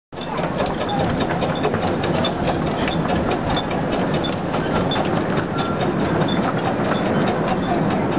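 Small narrow-gauge steam locomotive hauling carriages slowly past, a steady noise with rapid clicking throughout.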